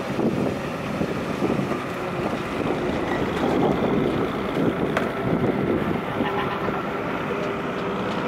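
Tractor engine running steadily while it hauls a fishing boat on its trailer across the beach, with some wind on the microphone.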